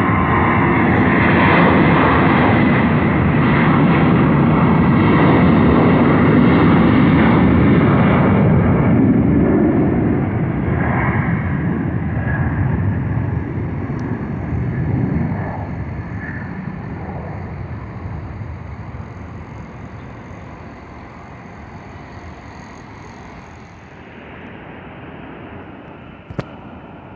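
Airplane engines close by and loud, then fading steadily over the next fifteen seconds as the aircraft moves away. A short click near the end.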